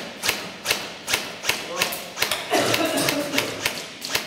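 Airsoft guns firing single shots, a string of sharp cracks at an irregular two to three a second, with a voice briefly about halfway through.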